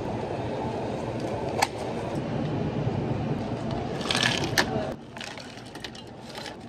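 Ice cubes dropped by hand into plastic cups of milk tea, clattering in a quick cluster about four seconds in, over a steady background din with a single sharp click earlier. Quieter after about five seconds, with a few light clicks.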